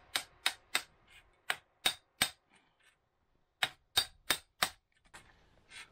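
Hammer striking a steel chisel held against a stone in a stone wall: sharp metallic clinks, about three a second, in runs of three or four blows with short pauses between, and two fainter taps near the end.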